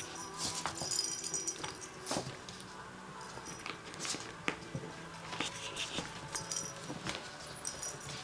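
A small bell inside a hanging plastic toy ball jingling in short spells as kittens bat at it, one spell about half a second in and more near the end, with light taps and scratches from their paws on the play mat and tunnel.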